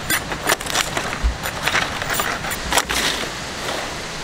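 Sickle cutting through green leaf stalks and trimming a leaf: a string of sharp, crisp cuts and snaps, about ten in four seconds.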